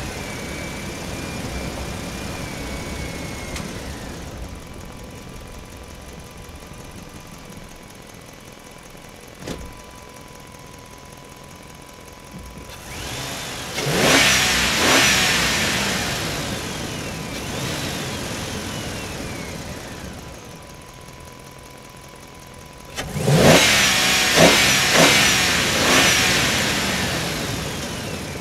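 Electric motors of a Huina radio-controlled excavator whining in two loud bursts, about 14 and 23 seconds in, sliding up and down in pitch as the boom and bucket work. Before that, a steady high whine from the RC dump truck's tipping bed fades out about four seconds in.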